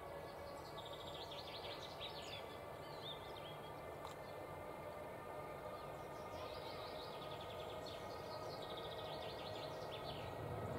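Songbirds singing in repeated rapid trills over a faint low rumble from a distant approaching train, which grows a little louder toward the end.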